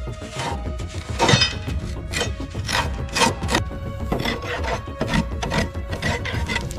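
Repeated rough scraping strokes, roughly one or two a second, over background music with sustained tones.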